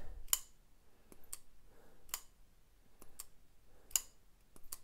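Civivi Altus button-lock folding knife being opened and closed repeatedly, the blade snapping open and locking with a string of sharp clicks. The freshly reassembled action is working fine, with the blade centred.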